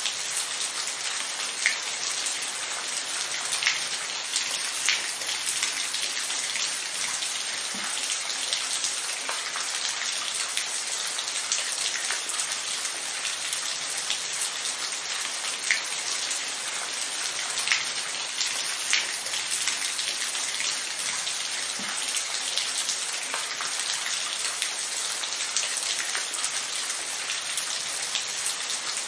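Steady rain falling, an even hiss with individual drops ticking sharply on a hard surface every second or two.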